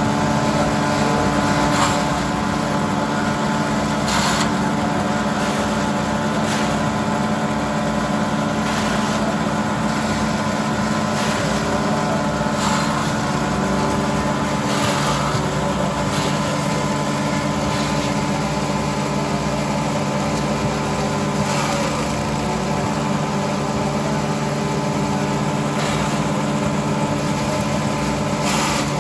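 Engine-driven forage choppers running steadily, with brief crunching bursts every few seconds as grass and cassava stalks are fed in and cut.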